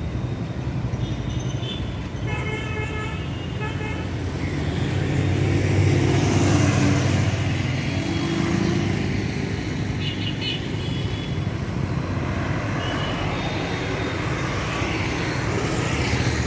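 Busy road traffic: engines running past, with one vehicle louder a few seconds in, and horns honking several times.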